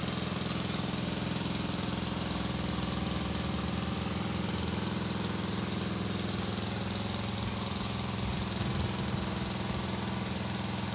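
Small engine-driven water pump running steadily at an even pitch as it drains the ditch.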